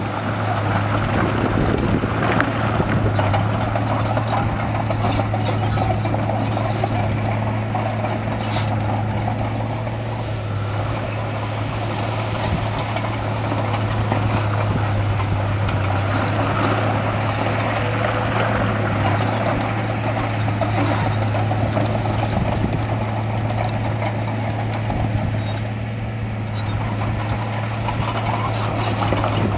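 Heavy diesel engine of earthmoving machinery running steadily, with a constant low drone.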